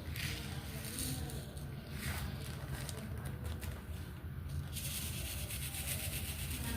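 Rubbing and sliding noise against a diamond painting canvas, a dry hiss that grows stronger about five seconds in, over a steady low hum.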